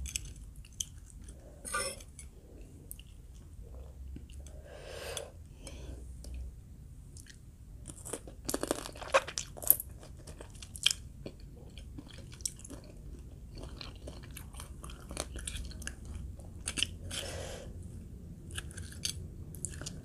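Close-up eating sounds: someone chewing green mango salad with crab, with wet chewing and crisp crunches throughout. A cluster of sharper clicks and crunches comes about eight to eleven seconds in.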